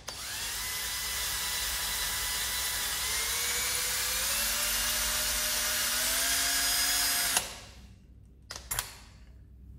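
Cordless drill running a bit through a drill guide into a broken stud, starting the centre hole. Its motor whine rises slowly in pitch and cuts off suddenly about seven seconds in, followed by a couple of light clicks.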